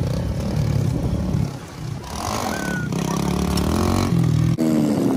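Small off-road vehicle engine running and revving, its pitch rising and falling as it labours through deep water with several riders aboard. The sound drops briefly about a second and a half in and changes abruptly near the end.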